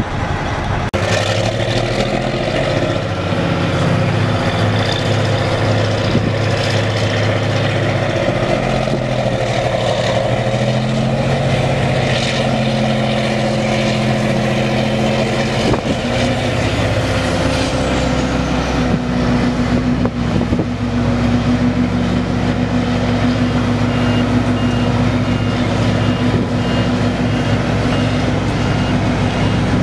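The Caterpillar 3412 V12 diesel engine of a Diamond tub grinder running loud and steady. It picks up speed partway through as it is throttled up, then holds at the higher speed. A repeating high beep joins in during the last few seconds.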